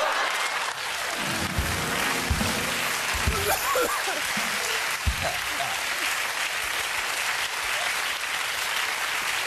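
Studio audience applauding, a steady clapping haze, with a few low thumps and scattered voices over it in the first half.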